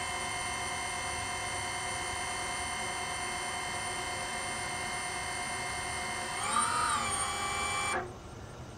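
DJI Avata FPV drone's four motors spinning its ducted propellers at idle, a steady whine of several tones. About six and a half seconds in the pitch briefly rises and falls. Near the end the motors stop abruptly, the stop command from pushing the stick down.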